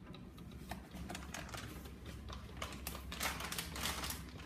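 Drip coffee maker just switched on, with irregular light clicks and ticks over a steady low hum and a brief hiss about three seconds in.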